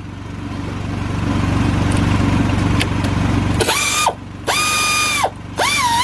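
Pneumatic air ratchet running in three short bursts on a rear brake caliper bolt, a high whine that sags in pitch twice in the last burst as it meets resistance; the caliper's slide pin is turning along with the bolt instead of letting it back out. Before the bursts, a steady low hum from the air compressor running.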